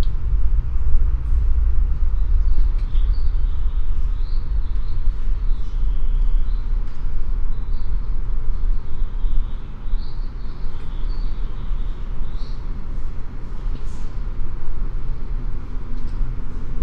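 Steady low rumble of an empty conference hall's ambience, with faint short high chirps scattered through it.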